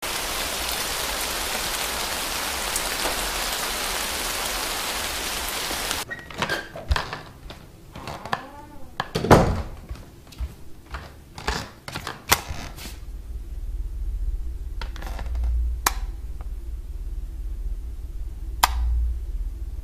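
A steady hiss for about six seconds, then indoor knocks, clicks and thumps: a loud thud about nine seconds in, and single sharp clicks later over a low hum.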